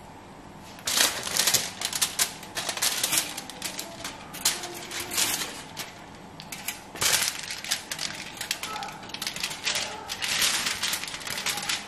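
Aluminium foil crinkling and crackling in quick clusters of clicks as hands handle and fold it, starting about a second in.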